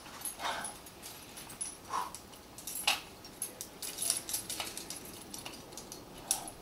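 Metal climbing gear, carabiners and quickdraws racked on a climber's harness, clinking and jingling in quick irregular clicks as he moves on the rock.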